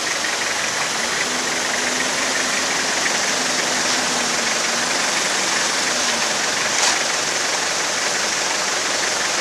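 A vehicle engine running on a rough mountain road, under a steady rushing noise, with one short sharper sound about seven seconds in.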